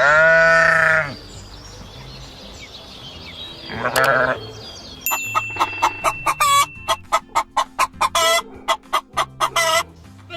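Chickens calling: one loud drawn-out call at the start, then a fast run of short clucks from about halfway through.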